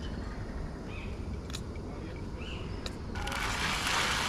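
Two faint clicks, then, about three seconds in, a sudden hissing sizzle as Thai-style curry paste is pushed around hot oil in a frying pan with a spatula.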